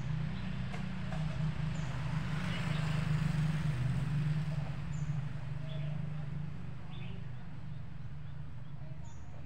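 A motor engine runs with a steady low hum that swells a little in the middle and fades away after about six or seven seconds. Faint short high chirps, like a small bird, come a few times.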